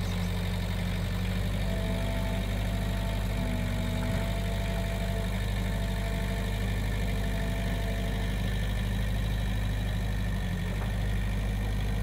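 New Holland skid steer's engine running steadily at idle, with a faint whine that comes and goes.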